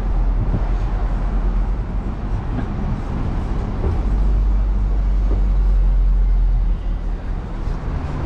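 City buses driving along a street, a low engine rumble that swells as one passes close about halfway through, then eases.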